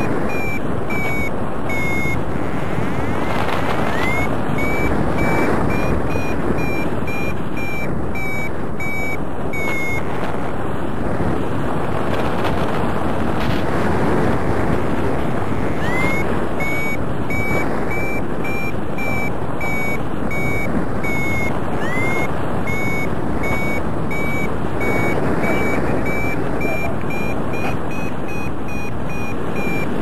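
Paragliding variometer beeping in short repeated beeps whose pitch steps up and down, the sign of the glider climbing in lift, over steady wind rush on the microphone. The beeps stop for several seconds around the middle, then start again with a rising chirp.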